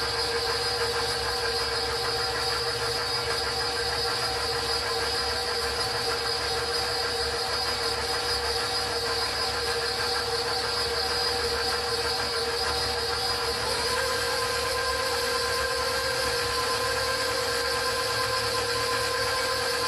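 KitchenAid stand mixer's motor running with a steady whine as its beater stirs dry flour, sugar and baking powder in the steel bowl. About fourteen seconds in, the pitch steps up slightly.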